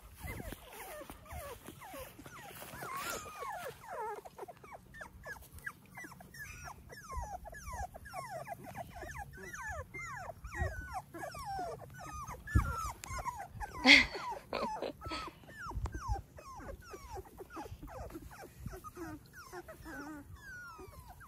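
A litter of very young Labrador puppies whimpering and squeaking in a steady stream of short, high, falling cries, with one louder burst about two-thirds of the way through.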